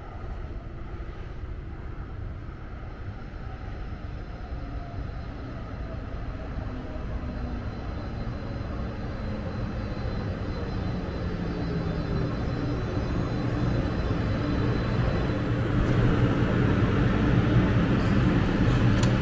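Light-rail train pulling into an underground station platform, growing steadily louder as it arrives, with a motor whine falling in pitch as it slows.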